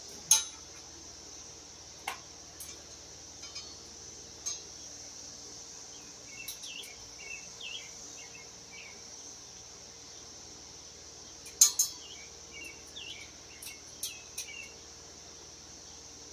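Sharp metallic clinks and taps of tools and parts during tricycle assembly. The loudest comes just after the start and a pair comes near twelve seconds in, over a steady high insect drone and a few short bird chirps.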